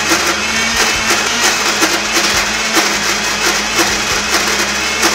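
Electric mixer grinder running steadily, blending a thick hummus paste in its stainless steel jar, with background music and a steady beat over it.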